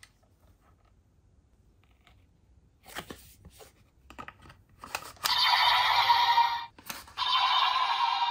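Several plastic clicks from the Kamen Rider Gotchard DX EX Gotcha Saber toy sword being worked, then from about five seconds in its small speaker plays a loud, harsh, noisy electronic sound effect that breaks off briefly and starts again.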